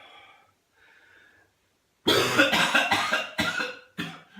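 A person with whooping cough (pertussis) in a coughing fit: two faint, strained breaths, then about two seconds in a loud run of harsh coughs in quick succession.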